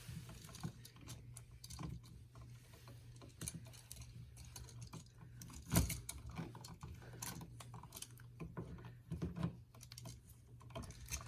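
Black vinyl electrical tape being unrolled and wrapped around an outlet's screw-terminal connections: scattered small crackles and clicks of tape and wires being handled, with a sharper click about halfway through.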